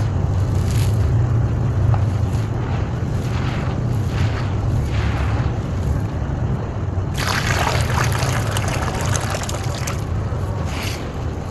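Dry, stony, dusty soil being crumbled and scattered by hand in soft rustling swishes, then about seven seconds in, water poured into a hollow in the dry dust for about three seconds. A steady low rumble of wind on the microphone underlies it.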